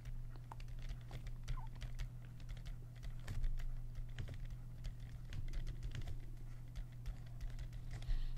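Stylus tapping and scratching on a tablet screen while handwriting: an irregular run of light clicks, over a low steady hum.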